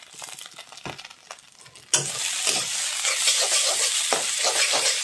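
Egg chowmein being stir-fried in a wok, a metal spatula scraping and tossing the noodles with the sauce just added. About two seconds in, a loud sizzle suddenly sets in and carries on under the stirring.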